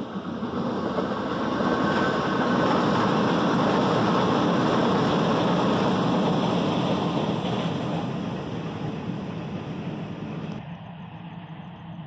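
A vehicle passing along the road, a steady rushing noise that swells to a peak a few seconds in and then slowly fades, dropping away suddenly near the end.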